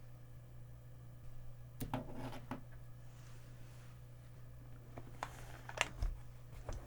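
Hands lightly handling a custom mechanical keyboard: a brief soft rustle with clicks about two seconds in, then a few single soft clicks near the end, over a low steady hum.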